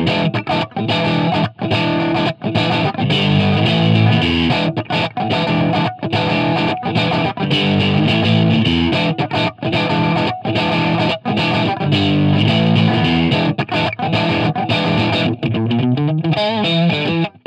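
Distorted electric guitar, a Stratocaster through an overdriven amp, playing a choppy rock riff of chords cut off by sharp stops. It ends on a note that bends and wavers in pitch.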